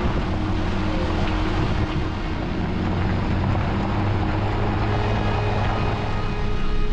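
Jeep driving along a wet gravel road: steady low engine hum with tyre and road noise, and some wind on the microphone.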